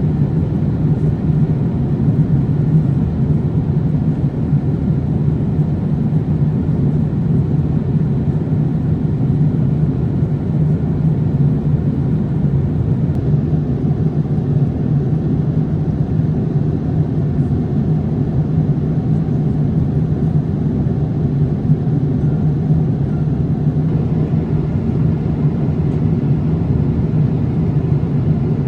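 Steady, even rumble of engine and airflow noise heard inside the cabin of a Boeing 787-8 airliner, strongest in the low range, with no change or distinct events.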